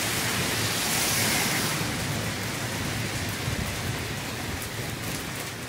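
Rain falling steadily, louder in the first two seconds and then easing a little.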